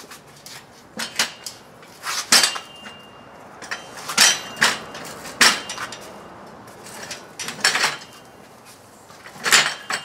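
Metal work-stand frame being unfolded and set down: a dozen or so sharp metal clanks and knocks at uneven intervals, some with a brief ring.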